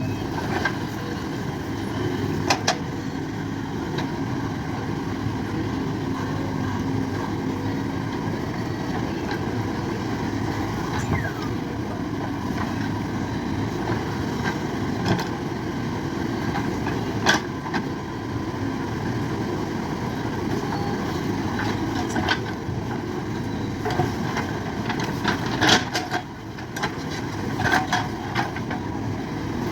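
Diesel engine of a JCB backhoe loader running steadily under work, with a few sharp clanks and knocks scattered through.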